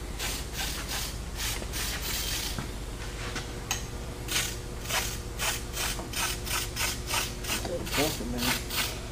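Rhythmic rasping strokes, as of scrubbing or scraping by hand, irregular at first and settling to about three strokes a second from about four seconds in, over a faint steady hum.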